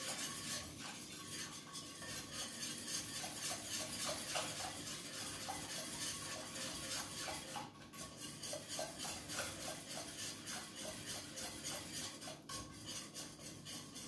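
Whisk beating against the inside of a stainless-steel pot in quick, even strokes, several a second, as corn flour is whisked into warm grape juice to keep it from lumping. The strokes break off briefly about 8 and 12 seconds in.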